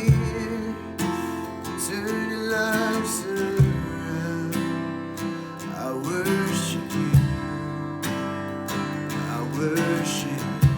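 Worship music: an acoustic guitar strumming chords, with a gliding, wavering melody line over it.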